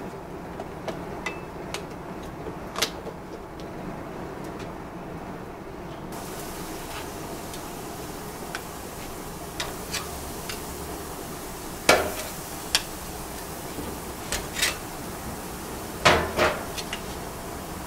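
Metal barbecue tongs clicking and knocking against a gas grill's grate and the food on it, with a few sharper clacks near the middle and near the end, over a steady background hiss.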